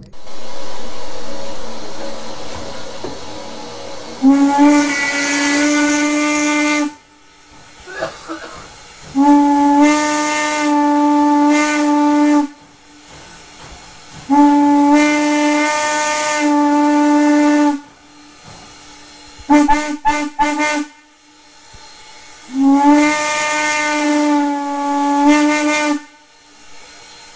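Steam whistle of Strasburg Rail Road locomotive No. 475 blowing four long blasts a few seconds apart, after a steady hiss at the start. A few quick sharp clicks come between the third and fourth blasts.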